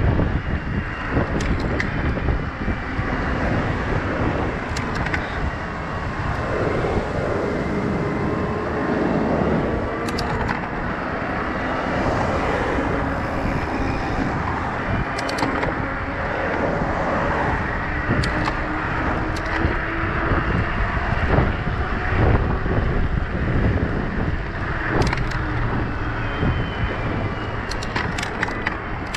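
Steady rush of wind and tyre noise from riding an electric mountain bike on a paved path, with a few sharp clicks and rattles from the bike.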